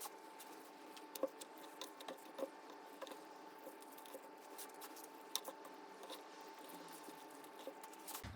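Faint, scattered soft taps and squishes of hands wrapping ground-meat filling in cabbage leaves, over a faint steady hum.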